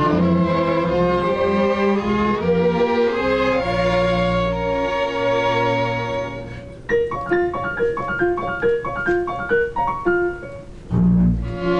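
Chamber string orchestra of violins, violas and cellos playing classical music. It holds sustained chords for the first half, then plays a run of short, detached notes, and full chords return near the end.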